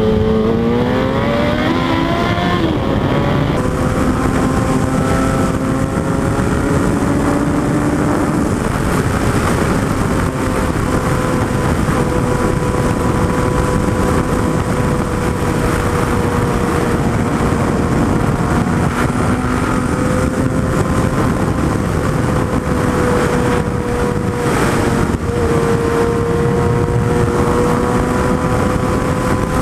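Suzuki Hayabusa's inline-four engine revving up hard, its pitch climbing steeply for the first few seconds. It then runs at a steady high speed under heavy wind rush, with a brief dip and change in pitch about 25 seconds in.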